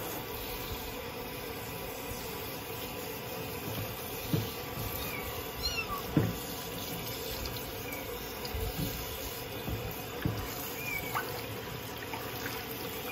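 Water from a handheld shower head running steadily into a plastic basin as a small kitten is rinsed. A few faint, short, high mews from the kitten and a few dull knocks come through the spray.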